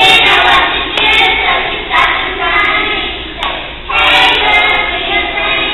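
A group of children singing a song together, loudly, in short phrases.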